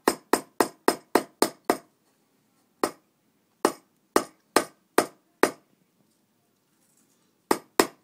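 Hammer striking a flathead screwdriver to drive it into a coconut held in a saucepan: a quick run of sharp taps at about four a second that stops after a couple of seconds, then six slower, spaced taps, and two or three quick ones near the end.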